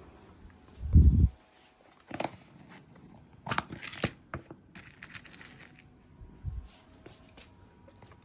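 Rustling and scattered light clicks, with a heavy low thump about a second in and a softer one near the end.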